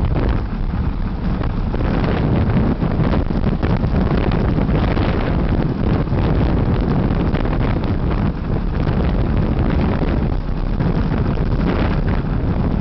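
Wind buffeting the microphone of a camera riding along on a moving bicycle: a loud, steady low rumble with no let-up.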